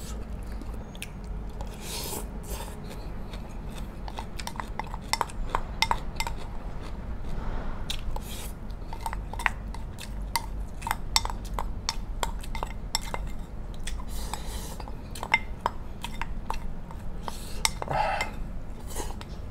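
Eating utensils clicking and tapping against plates and bowls many times over, with some chewing in between.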